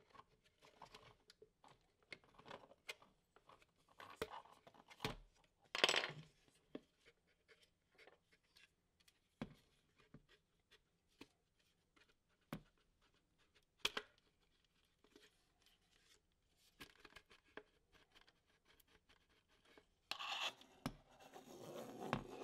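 Faint plastic clicks, scrapes and rubbing as a car fuel pump module's plastic housing is pried apart with a small screwdriver and handled. The sounds are scattered and short, with a louder scrape about six seconds in and a busier run of handling noise near the end.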